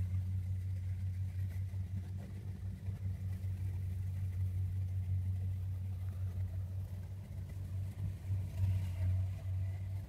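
Kubota combine harvester running while it cuts rice, heard as a steady low engine hum with little change.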